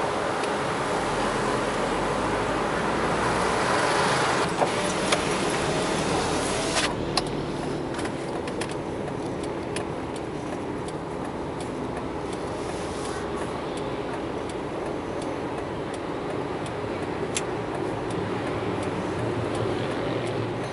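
Traffic and road noise heard from inside a car driving on a wet city street. A steady rushing hiss drops away abruptly about a third of the way in, leaving quieter road noise with scattered light clicks.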